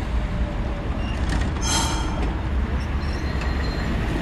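RVR-6 tram running along street track with a steady low rumble of wheels and running gear. About two seconds in there is a brief high squeal.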